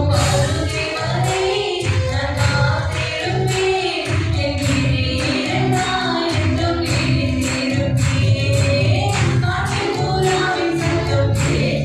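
Christian worship song: voices singing a melody over a steady beat of bass and percussion.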